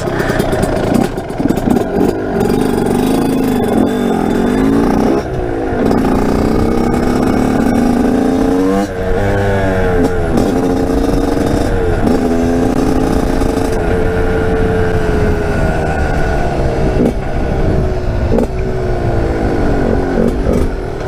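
TM 125 SMR two-stroke supermoto engine revving hard under way, its pitch climbing repeatedly and dropping between climbs as it accelerates and shifts through the gears.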